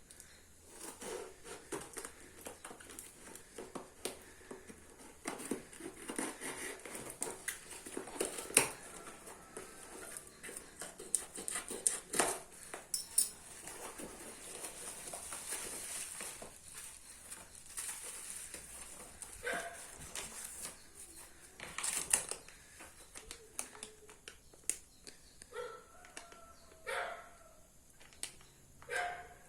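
Packaging being handled: rustling with many small clicks and knocks. In the last third come a few short pitched calls, something like an animal's yelps.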